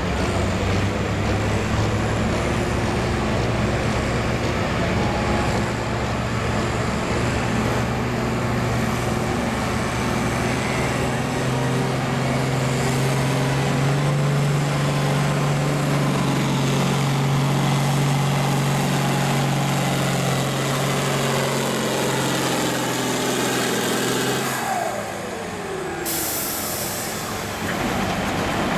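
Farm tractor engine working hard under load as it pulls a weight-transfer sled, at a steady pitch that creeps up through the pull. Near the end the engine throttles back and winds down in pitch, and a short hiss follows.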